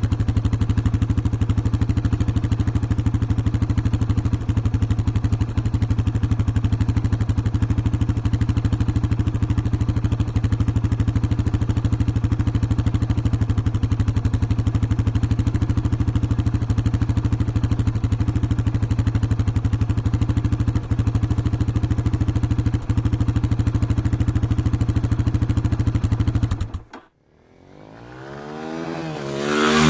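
A steady mechanical running sound with a fast, even rattle over a low hum, cutting off abruptly near the end. A vehicle engine then comes in, rising in pitch.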